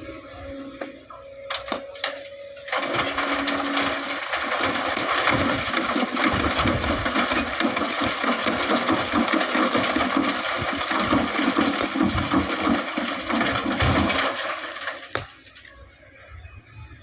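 Excavator bucket dumping sand and stones into a dump truck's steel bed: a few knocks, then about twelve seconds of loud pouring, with many small stones rattling, dying away near the end.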